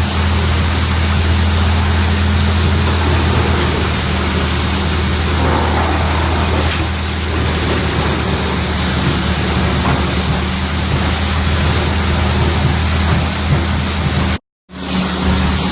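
Stump crusher wood chipper running, a steady low machine hum under a dense rushing noise. The sound cuts out for a split second near the end, then resumes.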